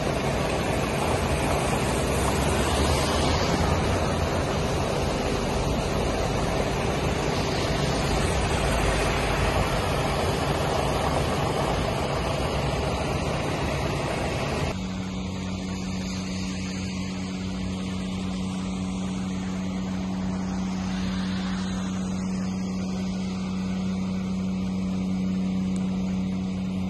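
Floodwater rushing over a road, a steady loud noise of running water. About halfway through it cuts to a quieter scene held by a steady low machine hum.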